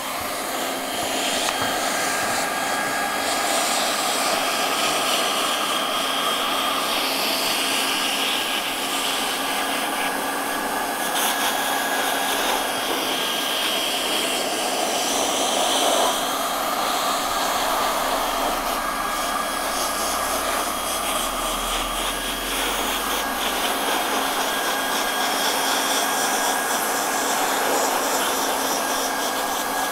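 Hot-air plastic welding gun running steadily, a rushing blow with a steady whine over it, as it heat-welds the plastic gutter liner's stop end into the crease.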